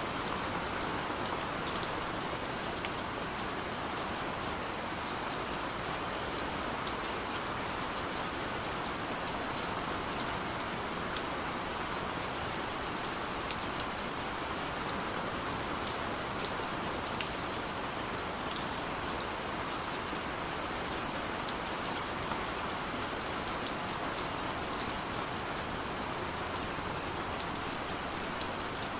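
Steady gentle rain falling, a constant hiss with many small drop taps scattered through it.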